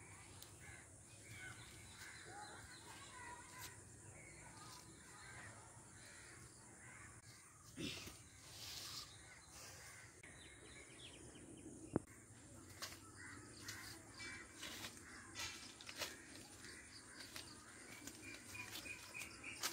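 Crows cawing faintly over quiet outdoor ambience, with a single sharp click about twelve seconds in.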